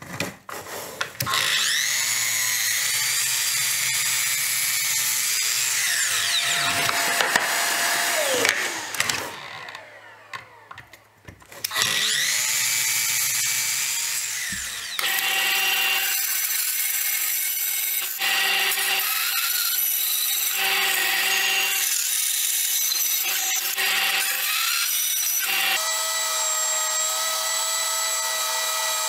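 Mitre saw spinning up and crosscutting plywood, its motor winding down with falling pitch after the cut, then a second short cut. After that a spindle sander's drum runs steadily as plywood is sanded against it, the sound rising and falling as the work is pressed on.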